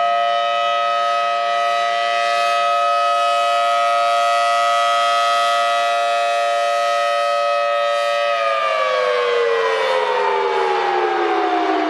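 Outdoor warning siren sounding a loud, steady chord of several tones. About eight seconds in, the whole chord begins to fall steadily in pitch as the siren winds down.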